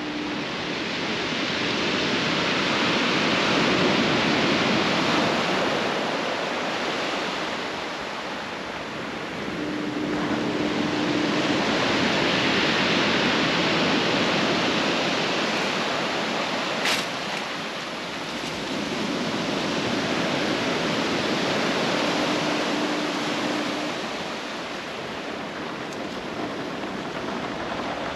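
Surf breaking on a cobblestone beach, swelling and fading about every nine seconds. A low foghorn sounds a steady note about two seconds long every twelve seconds or so, three times. There is one sharp click near the middle.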